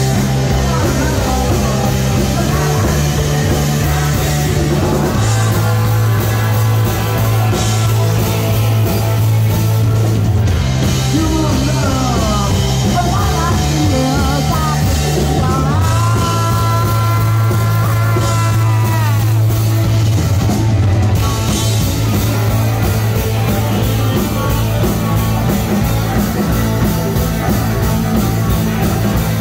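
Live rock band playing loud, with electric guitars, drums and a low bass line moving in steady blocks of notes. Near the middle a high note is held for a few seconds and then bends down.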